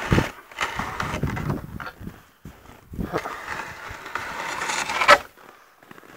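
Footsteps crunching in packed snow, uneven steps, with one sharper, louder crunch about five seconds in.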